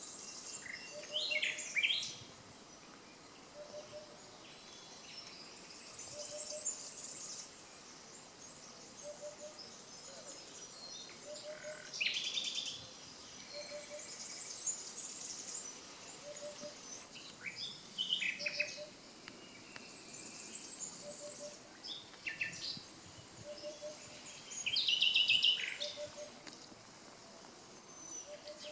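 Common nightingales singing: separate song phrases of rapid whistles, trills and chirps with pauses between, the loudest bursts about 1.5 s, 12 s and 25 s in. A faint low double note repeats about every second and a half underneath.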